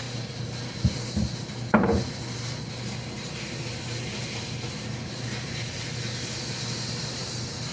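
Three short wooden knocks in quick succession, the last the loudest with a brief ring, over a steady low hum.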